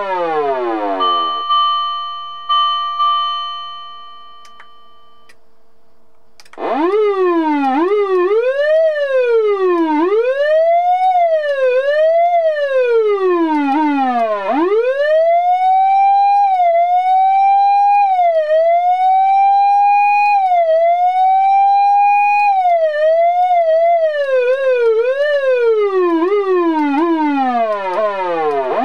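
Osaka Siren MK-11 electronic fire-engine siren: a wail falling away, then a few electronic bell strikes ringing out and fading. About six seconds in the siren starts again, sweeping up and down unevenly, then holds high with small dips. Near the end it breaks into quick, repeated falling sweeps.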